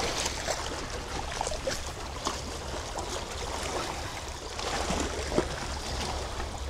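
Seawater washing and trickling among shore rocks, a steady wash with many small scattered clicks and one sharper click about five and a half seconds in.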